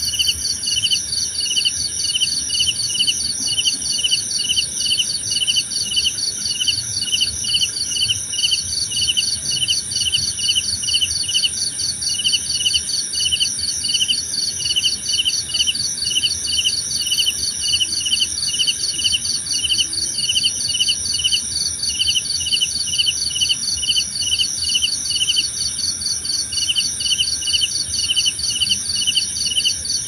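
Night chorus of crickets and other insects: one voice chirping in a regular pulse a few times a second, layered over several continuous high trills.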